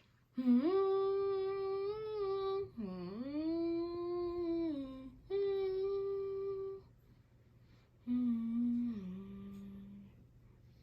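A person humming a wordless tune in four held phrases, with a swooping dip in the second, and the last phrase stepping lower and fading out.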